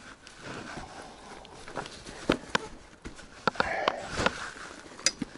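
Close handling noise: rustling of a plastic bag and scattered sharp clicks and knocks as fishing gear is handled by hand, with a short spell of rustling a little before four seconds in.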